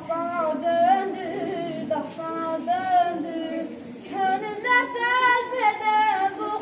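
A boy singing solo, holding long notes that bend in pitch, with short breaks between phrases.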